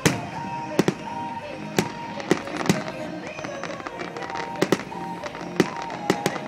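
Aerial firework shells bursting overhead: about ten sharp bangs, the loudest right at the start and several in quick pairs, over music playing underneath.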